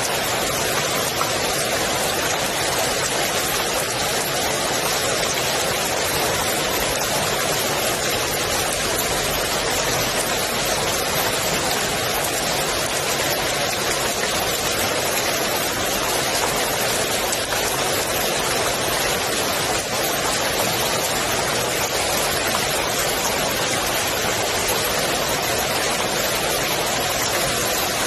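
Steady rain falling on the water of a swimming pool: an even hiss of countless drops that holds at the same level throughout.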